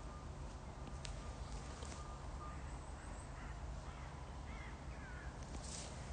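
Outdoor ambience with a few short bird calls about halfway through, over a steady low rumble.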